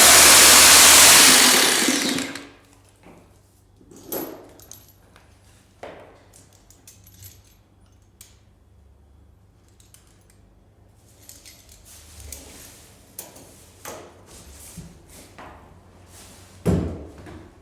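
A power tool runs loudly and stops about two seconds in, followed by scattered light knocks and clicks and a heavier thump near the end, as of work on a parquet floor.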